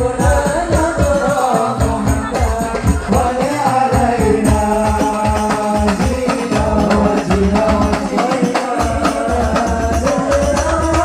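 Music: a wavering melody over a fast, steady percussion beat.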